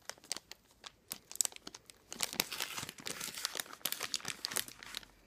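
A plastic wrapper crinkling as it is handled, in irregular bursts of quick crackles.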